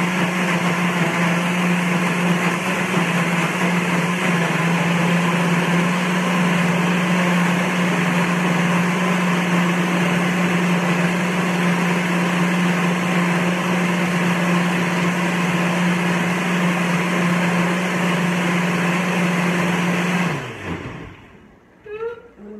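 Countertop blender running steadily, blending a thin sauce. About twenty seconds in the motor switches off and winds down with a falling pitch, followed by a few light knocks as the lid is handled.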